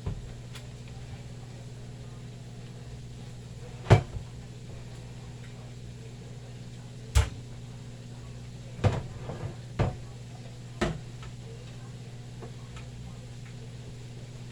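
Kitchen knocks and clunks: five sharp hits of the kind made by cupboard doors or items being set down, the loudest about four seconds in and the rest spread through the middle, over a steady low hum.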